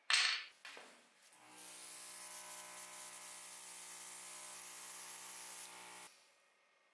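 A short, sharp hiss, then from about a second and a half in an airbrush runs steadily with its small compressor: a hum with a stack of even tones under the hiss of paint spraying, stopping abruptly about six seconds in.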